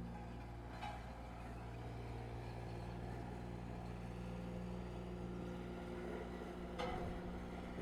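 Diesel engine of a road roller running steadily while it compacts fresh asphalt. Two brief knocks come through, about a second in and near the end.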